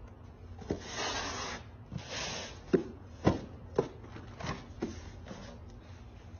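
Two brief rustles, then a run of about six sharp knocks and thumps about half a second apart.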